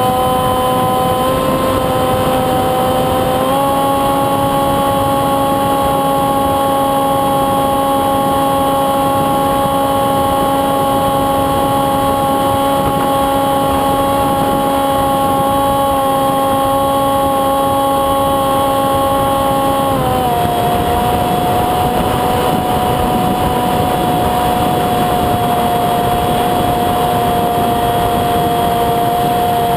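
Electric motor and propeller of a Windrider Bee2 flying wing whining steadily in flight over a steady rushing noise. The pitch steps up a little about three and a half seconds in and drops again about twenty seconds in, as the throttle changes.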